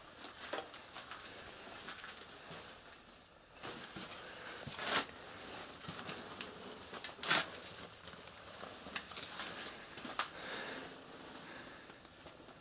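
Footsteps crunching and scraping on a debris-strewn concrete floor, irregular steps with a few louder crunches.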